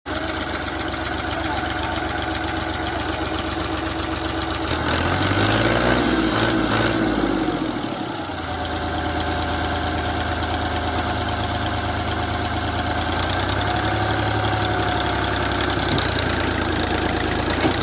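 Fiat 480 tractor's three-cylinder diesel engine idling, revved up once about five seconds in for roughly three seconds, then settling back to a steady idle.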